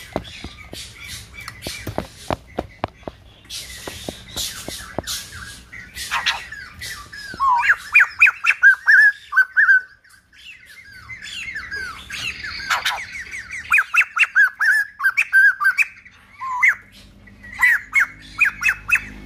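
White-crested laughingthrush calling: sharp ticks and harsh rasping notes at first, then from about six seconds loud runs of quick, wavering whistled notes, broken by a short pause near ten seconds.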